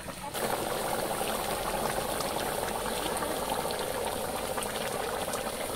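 Chicken curry bubbling at a steady boil in an iron kadai, a dense even bubbling that starts a moment in and holds until a sudden cut at the end.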